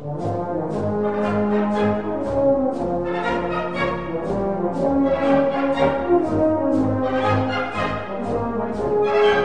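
Background music: a brass-led orchestral march, horns carrying the melody over a steady beat, from the video's Russian march soundtrack.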